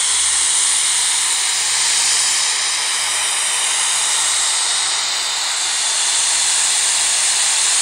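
White noise played from a smartphone speaker, a steady hiss with little bass, picked up by a HyperX QuadCast in its omnidirectional pattern. The level stays nearly even as the phone is moved around the microphone, as expected of an omnidirectional pickup.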